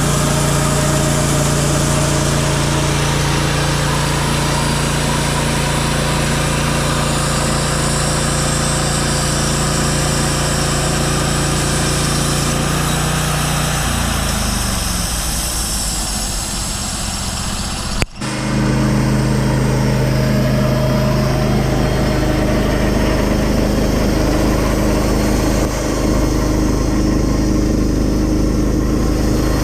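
Portable band sawmill's gasoline engine running steadily. About halfway through, its pitch sags and drops away for a few seconds, then the sound breaks off abruptly and the engine runs steady again.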